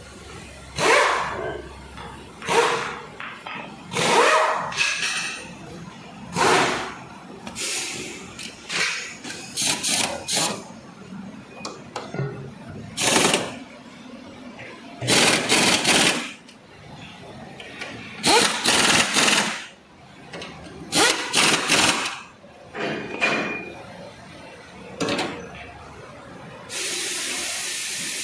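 Pneumatic impact wrench run in short, irregular bursts while the engine mount bolts are worked on, then a steady hiss of air near the end.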